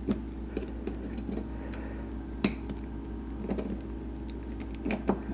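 Needle-nose pliers clicking and scraping against the metal lock cylinder of a 2011 Honda CBR600RR ignition switch as they reach in to grip and pull out the barrel. There are a few sharp clicks, the loudest about two and a half seconds in, over a steady low hum.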